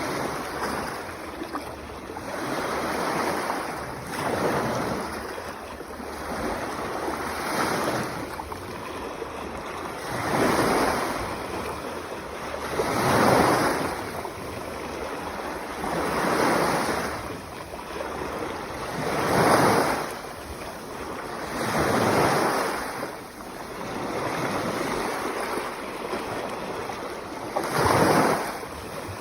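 Sea waves breaking and washing in, each one swelling and falling back about every three seconds.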